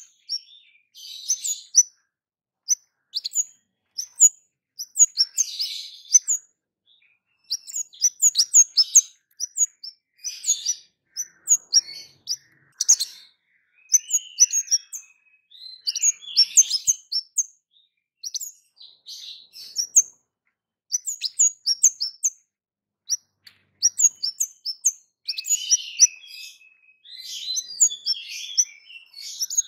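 Caged kemade songbird singing in quick bursts of sharp, high chirps, loud 'cit' calls strung into short phrases with brief pauses between them.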